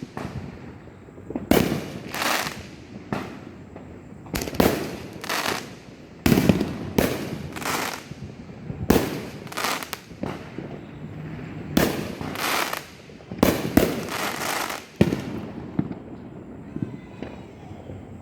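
Fireworks exploding: a string of sharp bangs, each with a short crackling tail, several seconds apart and sometimes in quick pairs, thinning out near the end.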